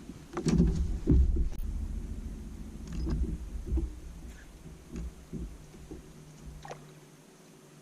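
A string of irregular knocks and bumps in a boat, loudest in the first second or so and growing sparser, over a low rumble that stops near the end.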